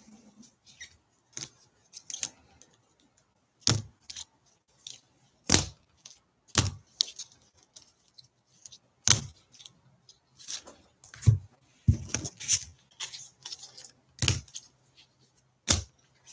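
Trading cards being sorted and packed by hand on a table: irregular sharp clicks and taps, with light rustling in between.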